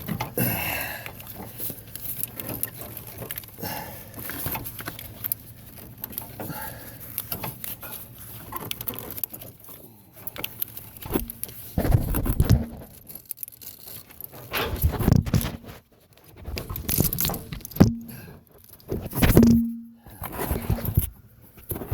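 Clicking, scraping and rattling of hands working a plastic sleeve into a metal AC quick-connect fitting, trying to get it under the coupling's internal spring to release it. In the second half the handling comes in louder, separate spells, with a few short low hums among them.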